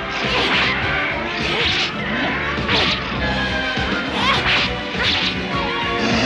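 Cartoon fight sound effects: a rapid string of swishing blows and hits, several a second apart, over a steady background music score.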